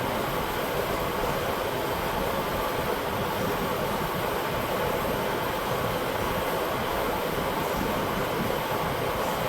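A large shop fan running: a steady rushing noise with a faint hum in it.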